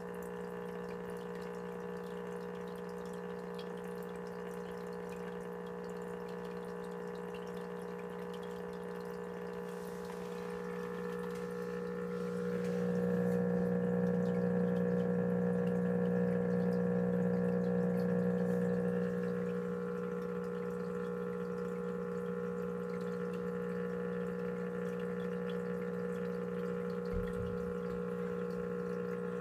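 Aquarium equipment running with a steady hum and water trickling. The hum swells louder for several seconds in the middle, then settles back.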